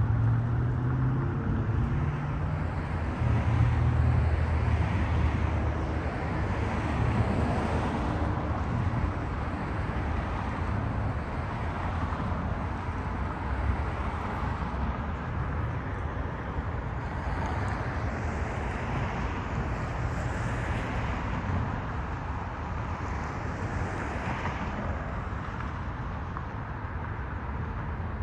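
Steady outdoor road traffic noise: the low hum of car engines, with several vehicles swelling past in the second half.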